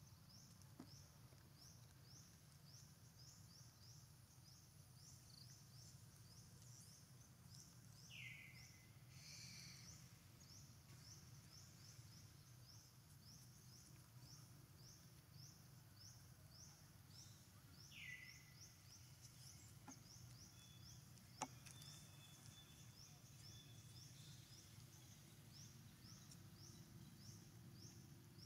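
Faint outdoor ambience: a high chirp repeating steadily about twice a second over a low hum, with two short falling calls about 8 and 18 seconds in, and one sharp click a little past 21 seconds.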